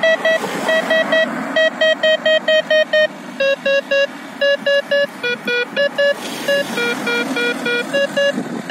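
Electronic alert beeps from the EUC World app, fed by a Garmin bike radar: rapid short beeps in groups of three or four, stepping down in pitch about halfway through and back up near the end. The pitch, rate and loudness of the beeps signal an approaching vehicle, and a passing car is heard underneath.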